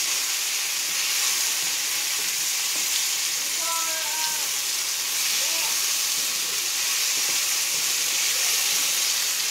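Pork, eggplant and mushrooms sizzling steadily in a hot pan of sauce while a wooden spatula stirs and turns them.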